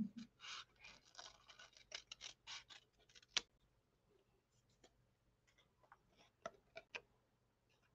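Small fine-tipped craft scissors snipping around a paper cut-out: quick, faint snips close together for the first three seconds or so, then only a few scattered soft clicks as the cutting slows.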